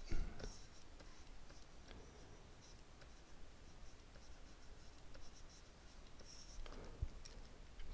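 Faint scratching of a stylus stroking across a graphics tablet during digital sculpting, with a few light ticks and one sharper click near the end.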